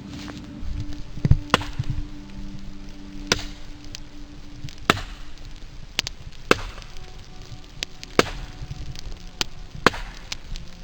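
Firewood being chopped: about nine sharp wooden strikes at irregular intervals of roughly one to two seconds.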